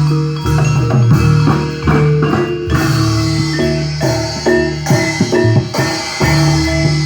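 Javanese gamelan music for jathilan: struck bronze metallophones ringing out melody notes over drums.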